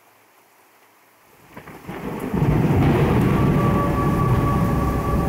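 Thunder rumbling, a storm sound effect: it swells in about a second and a half in and stays loud and deep, with a few steady tones sounding over it from about three seconds in.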